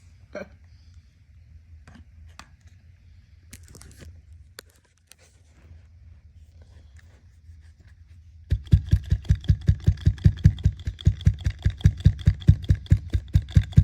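A clogged washing-machine drain pump being handled, with small clicks and scrapes. About eight seconds in it gives way to a loud, fast, even rattling, about five or six knocks a second, as the pump is shaken with trash inside it.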